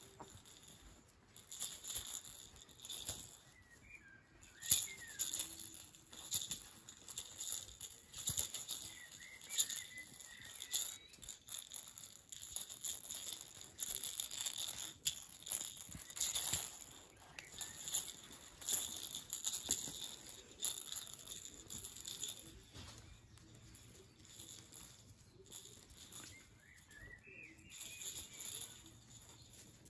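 A Cairn terrier puppy scrabbling over and tugging at a big plush toy: irregular rustling and scratching of paws and fur on the fluffy fabric, with a few faint high squeaks now and then.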